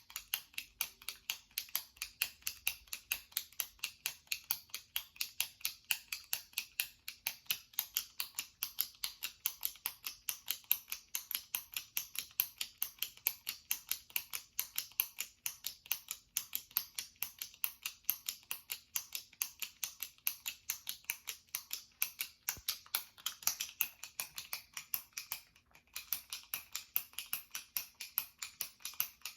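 Jumbo retractable pen's push button clicked over and over, a steady run of sharp plastic clicks a few times a second, with one brief pause near the end.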